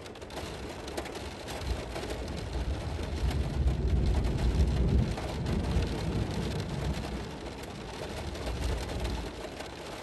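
Steady rain falling on a car's windows and roof, heard from inside the car, with a low rumble that swells about two seconds in, is loudest around the middle and fades by about nine seconds.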